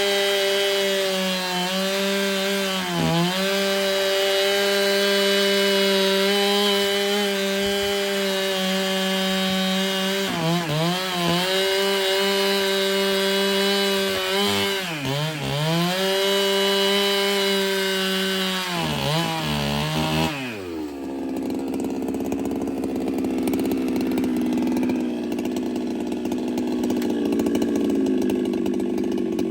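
Ported Husqvarna 395 two-stroke chainsaw running at full throttle, its high steady scream dipping in pitch several times as the cut pulls it down. About twenty seconds in it drops sharply to idle and keeps idling.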